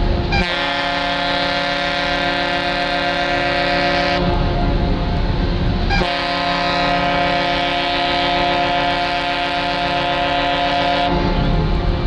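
Ship's whistle of the cruise ship Emerald (SS The Emerald) sounding long, steady, deep chord blasts, with a short break about six seconds in. It stops about eleven seconds in, leaving a low rumble.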